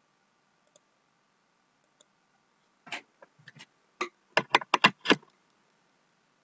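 Clicks of a computer mouse and keyboard: a few scattered single clicks, then a quick run of about six clicks around four to five seconds in.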